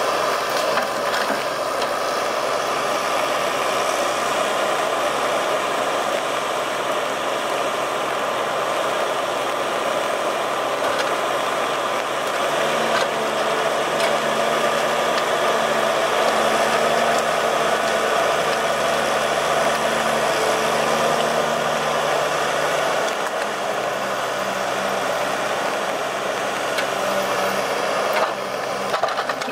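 Valmet 840.3 forwarder's diesel engine running steadily under load while its hydraulic crane swings the grapple and loads logs. A lower, even hum joins about a third of the way in and fades out after about ten seconds, and a few faint knocks come through.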